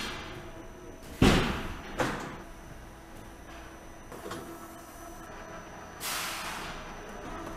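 Heavy steel foam moulds on a moulding carousel, a hinged mould lid banging once loudly and then a second, sharper knock, over a steady low machine hum. A short hiss comes near the end.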